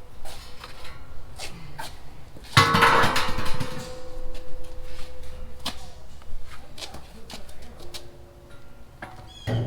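Steel angle iron being handled and moved in a shop: scattered knocks and clanks, then a loud metal clang about two and a half seconds in that rings on steadily for several seconds.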